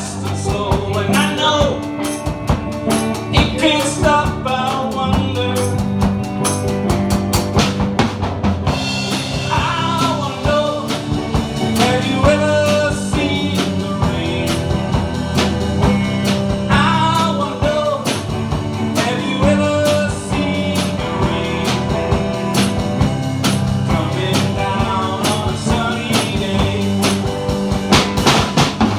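Music: a song with a sung vocal over a steady drum-kit beat.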